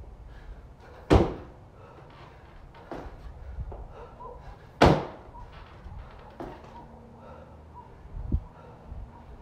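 Feet landing hard on a wooden plyo box during box jumps: two loud thuds about three and a half seconds apart, then a fainter thump near the end.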